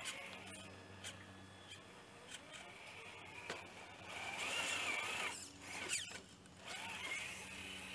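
Traxxas TRX-4 Bronco RC rock crawler's electric motor and geared drivetrain whining as it climbs onto a rock, the whine rising and falling with the throttle, loudest about halfway through and cutting out briefly twice near the end, with small clicks along the way.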